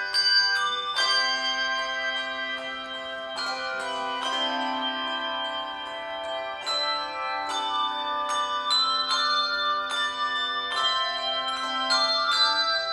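Handbell choir ringing slow chords: struck bells that ring on and overlap, over a low bell note held through most of the passage.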